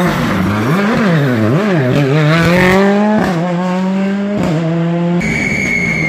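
Rally car engine at full competition pitch. The revs swing up and down twice, then climb, with two quick breaks in the note as the car changes gear. A high tyre squeal starts near the end.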